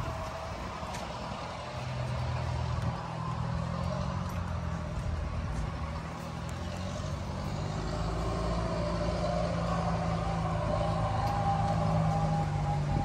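A motor running steadily: a low, even hum that comes in about two seconds in and holds.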